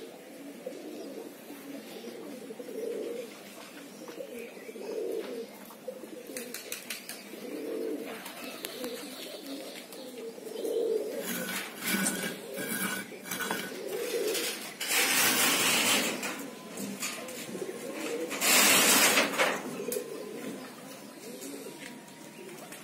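Domestic pigeons cooing over and over, low soft coos every second or two. In the second half there are two loud bursts of rustling.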